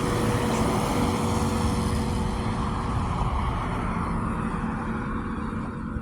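Road traffic passing close by, loudest about a second in and then fading away, with the lingering hum of a church bell dying away underneath.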